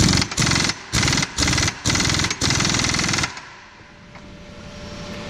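Pneumatic impact wrench hammering in about six short bursts over some three seconds, then stopping: it is tightening the supercharger pulley hub.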